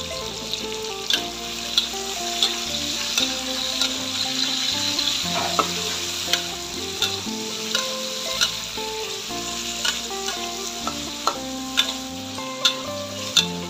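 Pineapple chunks sizzling as they fry in a steel wok, stirred with a metal ladle that scrapes and knocks against the pan about every 0.7 seconds.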